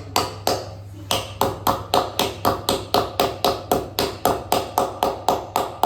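Hammer driving a metal pin into a motorcycle part: a few spaced blows, then a fast steady run of ringing metallic strikes, about five a second.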